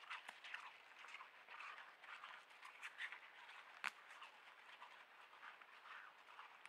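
Bull elk grazing: faint, irregular tearing and crunching as it crops grass, with one sharp click a little before four seconds in.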